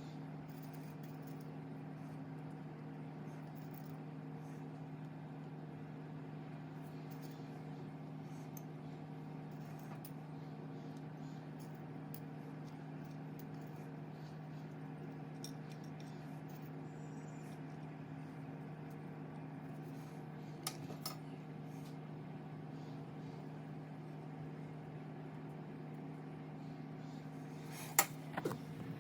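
Steady low hum of a running kitchen appliance, with a couple of light clicks about two-thirds of the way through and a sharper click near the end.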